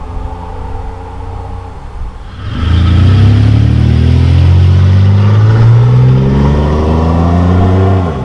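A 1997 Camaro's 3.8-litre Series II V6 exhaust, running through a Cherry Bomb performance muffler. It runs steadily, then about two and a half seconds in it is put under hard acceleration and gets much louder. The engine note climbs steadily for several seconds, then drops off suddenly near the end.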